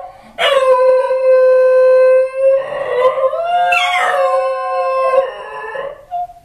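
Two Basenji dogs howling after being left alone at home: one long, steady howl, then overlapping howls that slide up and down in pitch, breaking off near the end.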